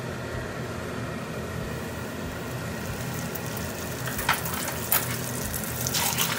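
Hot oil in a frying pan hissing, then sizzling and crackling with sharp spits once a thin disc of bread dough is laid in it, growing busier from about three seconds in. A steady hum runs underneath.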